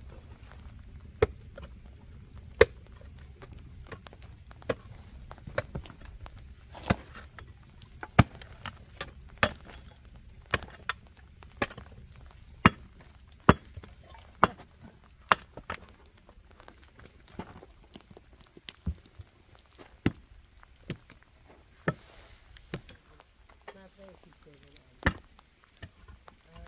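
Repeated sharp knocks, roughly one a second and unevenly spaced, with fainter clicks between them, over a low rumble that fades out about two thirds of the way through.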